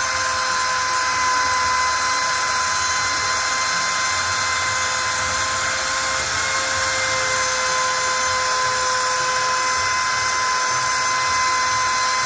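Trim router spindle on a CNC router gantry running at high speed with a steady high whine, its bit engraving a box outline about 2 mm deep into a board.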